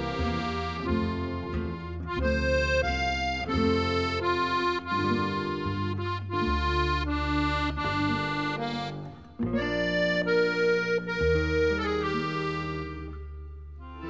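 Background music of sustained, held instrumental chords. It drops out briefly about nine seconds in and fades down near the end.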